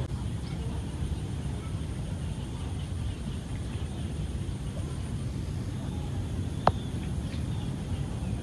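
Steady low rumble, with one sharp click about two-thirds of the way through.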